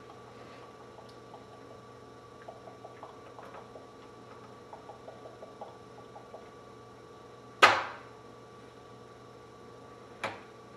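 Spring-loaded plug spinner working a door lock's plug: a run of small light clicks, then one loud snap about seven and a half seconds in as the spring releases and spins the plug, and a sharper click near the end.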